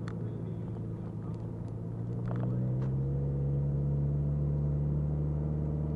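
Car engine and road noise heard from inside the cabin, a steady hum. About two and a half seconds in, the engine note climbs and gets louder as the car picks up speed.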